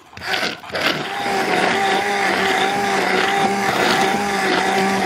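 Electric immersion hand blender running in a saucepan of thin sauce, puréeing chopped dried persimmon into it. It settles into a steady motor hum about a second in.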